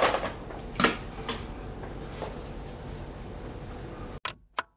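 A few light knocks and clinks, like things being handled on a bar counter, over a steady low room hum. Near the end there are two short clicks and the sound cuts out.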